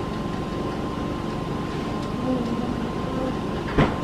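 Steady background hum with a faint steady tone, broken by a single thump near the end.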